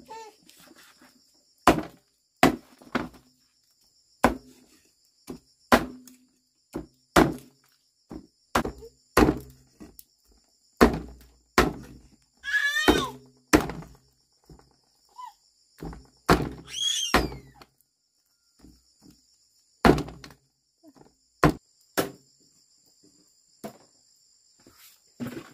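An irregular series of dull thunks, roughly one a second, like repeated blows with a tool, over a steady high trill of insects. Twice, about halfway and two-thirds through, a short high wavering call cuts in.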